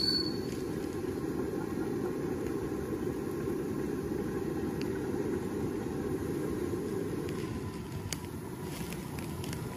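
Steady rumble of a ride-on large-scale miniature train rolling along its track, with a few faint clicks.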